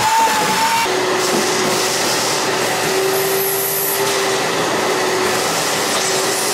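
A shop vacuum runs steadily, sucking drilled-out rotten wood and sawdust from inside an aluminum boat's transom through its hose. The higher whine of a power drill stops about a second in.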